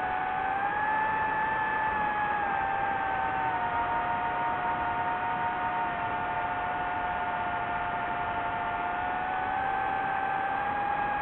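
DJI FPV drone's motors and Gemfan Hurricane 5236 propellers whining in flight, over a steady rush of noise. The whine rises about a second in, drops a few seconds later and rises again near the end as the throttle changes.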